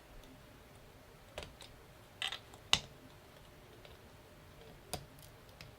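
Lego bricks being handled and pulled apart: a few scattered, sharp plastic clicks and taps, about five in all, with quiet between.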